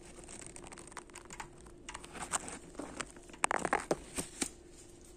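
A spoon scraping mascarpone out of its tub and knocking it off into the bowl: scattered scrapes and clicks, with a quick cluster of sharp clicks about three and a half seconds in.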